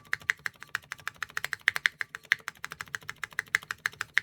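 Mechanical keyboard with Kailh Calligraphy R2 linear switches (MF stem, LCP housing) in an aluminium-plate board, keys struck rapidly at about eight clacks a second. The clacks vary in loudness and brightness from stroke to stroke: the inconsistent sound that marks these switches as poor.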